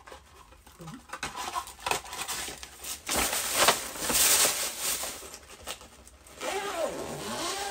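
Gift packaging being handled: paper and plastic wrapping rustling and crinkling, with scattered taps and clicks, and a loud crinkling stretch about halfway through.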